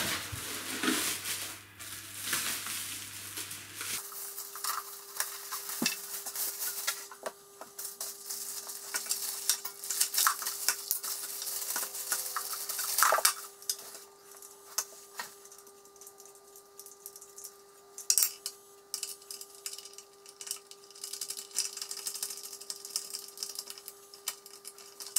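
Clear plastic wrapping crinkling and rustling as it is pulled off by hand, with scattered clicks and knocks of handling and a faint steady hum from a few seconds in.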